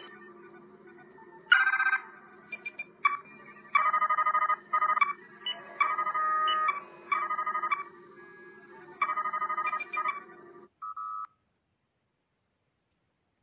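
Star Trek tricorder sound effects: bursts of rapid electronic trills and beeps over a low steady hum, ending with a short beep about eleven seconds in.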